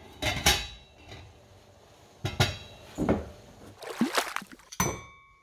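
A stainless steel lid clatters onto a steamer pot. Then metal spoons knock and scrape against a small stainless steel bowl as they scoop thick chilli paste, several separate clinks, the last one ringing briefly.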